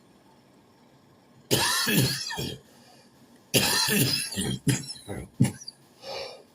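A person coughing in a fit: one loud cough burst about a second and a half in, then after a short pause a longer run of several hard coughs, and a softer, shorter one near the end.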